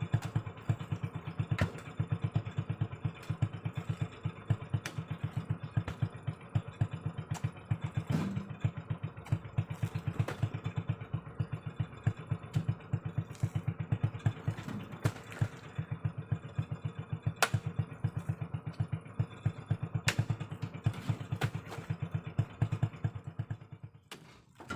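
Honda Revo 110 cc single-cylinder motorcycle engine of a homemade mini truck running at a steady low speed with an even, rapid pulse, a few sharp clicks over it; it stops near the end.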